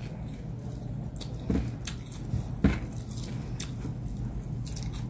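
A person eating with their hands: chewing and lip-smacking, with several short, wet clicks and smacks as roast meat is pulled apart by hand.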